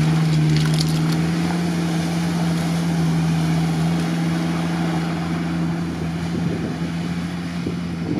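Toyota Land Cruiser 70's engine held at steady high revs, pulling the truck through bog mud. The drone stays at one pitch and slowly fades as the truck moves away.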